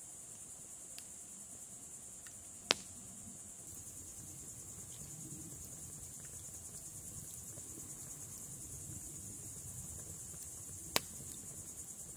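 Steady high-pitched chorus of crickets trilling, with two sharp clicks, one about three seconds in and one near the end.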